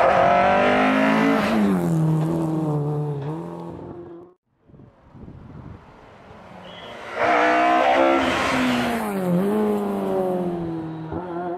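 Rally cars driven hard past the spectators on a narrow lane, two separate passes. The first engine sound cuts off suddenly about four seconds in. The second rises sharply about seven seconds in, and its engine pitch drops and climbs again through the pass.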